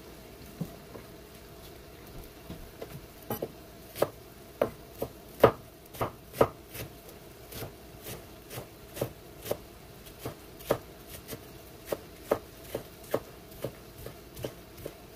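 Knife chopping on a cutting board: a few scattered knocks, then from about three seconds in a run of sharp, irregular chops about two a second, over a faint steady hum.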